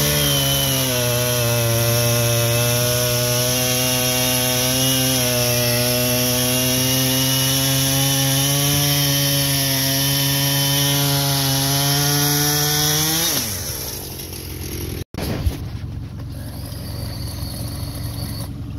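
Chainsaw cutting a fallen log, running at a steady high speed for about thirteen seconds, then its motor winds down to a stop.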